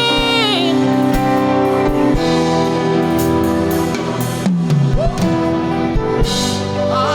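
Church worship band music with drum kit and guitar over held chords. A sung or played gliding note falls away within the first second.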